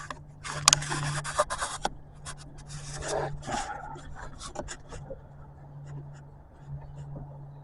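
Rubbing and scraping with scattered clicks, busiest in the first few seconds and then thinning out, over a steady low hum.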